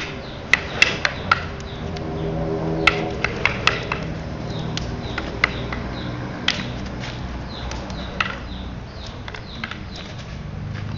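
Sharp wooden clacks of rattan arnis sticks in stick sparring: a quick flurry of knocks in the first few seconds, then scattered single clacks. A low hum runs underneath around the middle.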